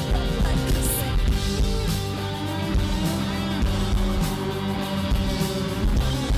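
Live rock band playing a song at concert volume, with guitar and singing.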